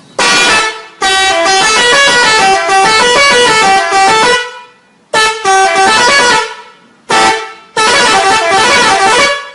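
Bus 'telolet' horn, a multi-tone musical horn, playing short stepped melodies in about five loud blasts with brief gaps; the second blast is the longest, about three seconds.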